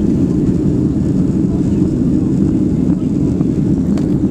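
Steady cabin noise of a Boeing 767-300ER airliner climbing out after takeoff: the deep, even rumble of its twin jet engines and airflow heard from a window seat.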